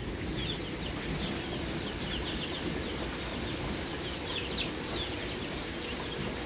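Chicks peeping in many short, high chirps, over a steady hiss of rain.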